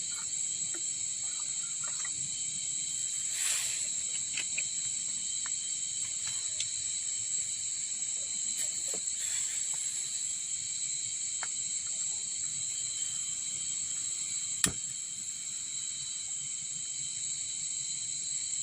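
Steady high-pitched chorus of insects, with a few faint clicks and one sharp click about fifteen seconds in.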